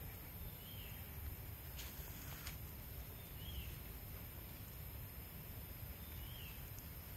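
Outdoor forest ambience: a bird gives a short chirp about every three seconds, three times, over a steady low rumble and a steady high hiss, with a couple of faint clicks.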